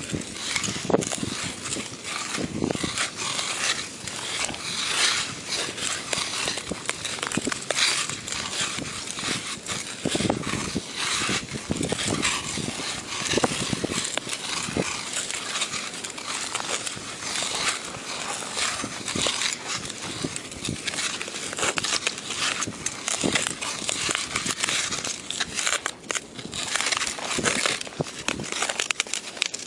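Hockey skate blades gliding and scraping on outdoor rink ice close to the microphone: a continuous crunchy hiss broken by stroke after stroke of blade scrapes.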